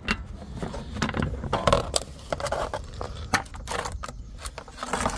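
Plastic underbody cover and its small nuts being worked off by hand: irregular clicks, knocks and scraping of hard plastic, with a low rumble underneath.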